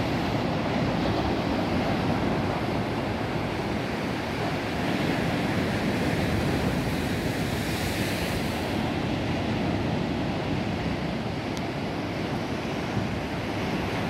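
Black Sea surf breaking along a rocky shore: a steady wash of waves, with a brighter hiss swelling about eight seconds in as a wave breaks. Wind rumbles on the microphone underneath.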